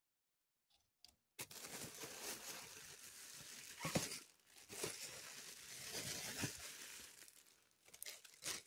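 Thin plastic shopping bags rustling and crinkling as a hand digs through them, starting about a second and a half in, with louder crackles around four and six and a half seconds.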